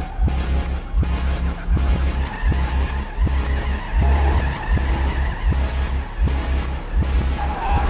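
Film chase-scene soundtrack played in reverse: vehicle engine and tyre noise over a rhythmically pulsing deep bass with regular sharp hits.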